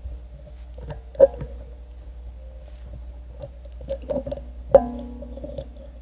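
Lock pick clicking against the pins of a brass padlock held under a floating spring tension wrench: a scattered handful of small metallic clicks, several followed by a brief ringing tone. The loudest click, near five seconds in, rings on the longest.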